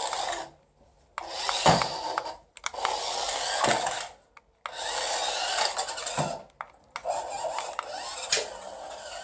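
A small battery-powered toy mouse's motor whirring in short spurts, about five times, cutting out after a second or two each time. It starts and stops as if faulty: it isn't running properly and keeps stopping.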